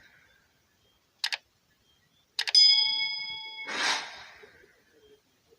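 A bell struck once, its ding ringing on for about a second after a couple of quick clicks, then a short whoosh of noise.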